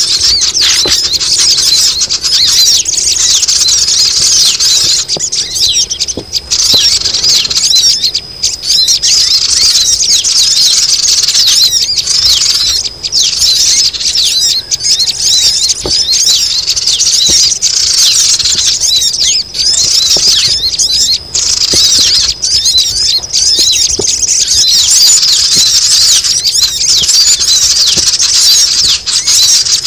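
A noisy lure recording of many sogon birds calling at once: a dense, unbroken mass of high, rapid twittering and chirping.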